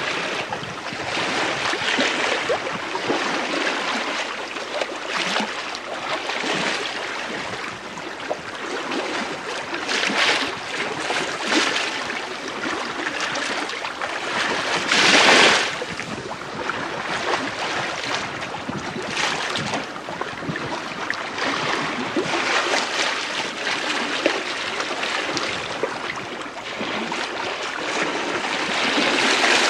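Bow wave of the sail training ship Malcolm Miller, under sail in a light wind, heard from the lee quarter: water washing along the hull in uneven surges, the loudest about halfway through.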